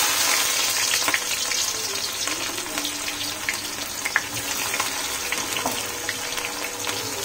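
Freshly added sliced red onions sizzling in hot oil and ghee in a steel kadai: a steady hiss with scattered crackles and pops, loudest at first and easing slightly.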